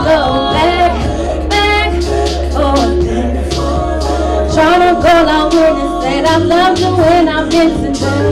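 A woman sings long, wavering, melismatic lines into a handheld microphone over a live band, with a steady bass line and regular drum and cymbal hits.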